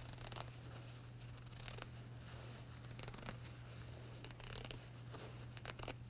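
Single-edged razor blade sliding along a pant hem and cutting through its top stitching: faint, irregular little snips and scratches as the threads part, over a low steady hum.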